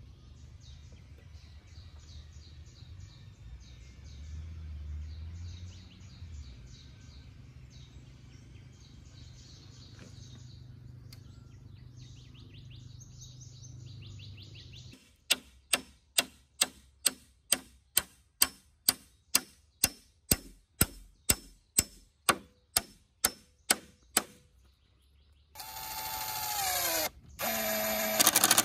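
Birds chirping over a low rumble, then a hammer striking about twenty times, roughly two blows a second, driving a nail into the wooden pole frame. Near the end a cordless drill runs twice, driving a screw through a metal corner bracket into a pole, its pitch dropping in the first run.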